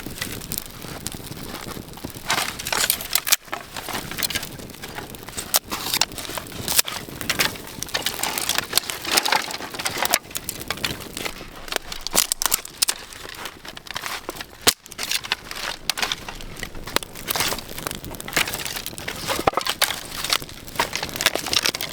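Newly lit fire of dry grass and birch tinder crackling and popping irregularly as it catches.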